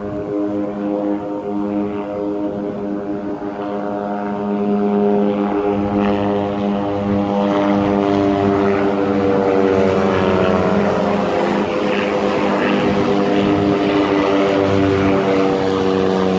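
An aircraft flying over: a steady engine drone that grows louder about four seconds in, its pitch slowly falling as it passes.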